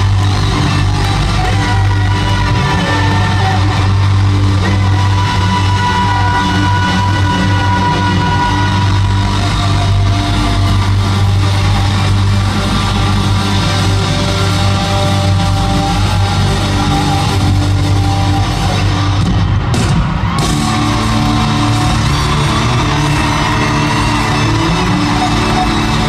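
Live pop-rock band playing loud and steady through an arena's sound system, heard from among the audience, with the hall's echo.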